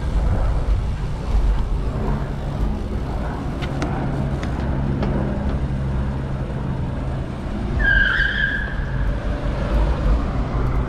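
City street traffic heard from a moving bicycle: a steady low rumble of car engines and road noise, with an engine hum in the middle. About eight seconds in there is one short, high-pitched squeal.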